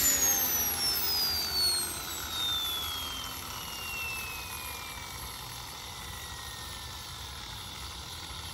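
Model turbine engine of an RC helicopter spooling down after being switched off: a high whine that falls steadily in pitch and fades as the engine slows toward its cooling cycle.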